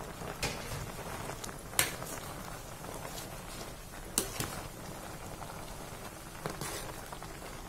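Water boiling in an aluminium pot as cassava leaves are pressed down into it with a metal spoon: a steady bubbling hiss broken by a few sharp knocks of the spoon against the pot, the loudest about two seconds in.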